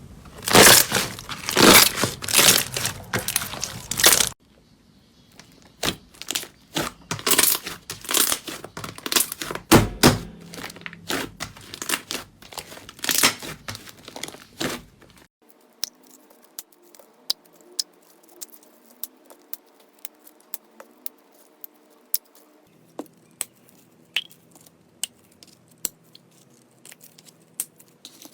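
Slime being squeezed and pulled apart: about four seconds of dense crinkling and crackling, then about ten seconds of irregular loud crackles and tearing, then sparse small pops and clicks.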